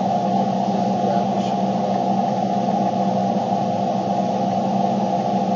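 Steady cabin noise inside a car, a constant even rush with a low hum under it and no distinct events.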